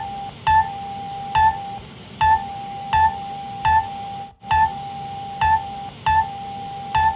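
Emergency alert alarm tone: a held electronic tone with short, higher beeps repeating roughly every three-quarters of a second, each beep with a low thump. The held tone breaks off briefly a few times, and there is a short dropout about four seconds in.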